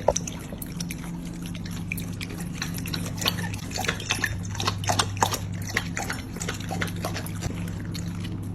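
Water dripping and trickling in irregular small splashes over a steady low hum.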